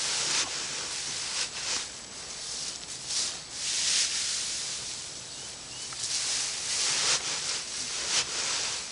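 Dry loose hay rustling and crackling as it is handled and stuffed into a homemade box baler, in irregular swells every second or so.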